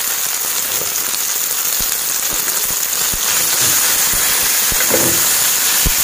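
Chicken pieces sizzling and crackling in hot oil in a metal frying pan, with a few light knocks and scrapes from a spatula stirring them in the pan.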